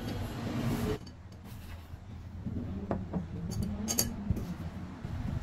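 Chopsticks and a spoon clinking against ceramic bowls while eating: a few sharp clinks around the middle, the last the sharpest, over a steady low hum. Background music stops about a second in.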